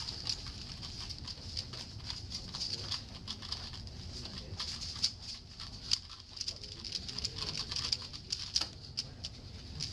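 Rubik's cube being twisted quickly by hand in a speed-solve: a rapid, irregular run of small plastic clicks and rattles, over a steady hiss.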